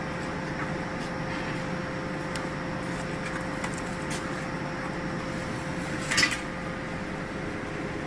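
Vertical cardboard baler's motor humming steadily with a constant tone. A brief sharp scraping hiss comes about six seconds in.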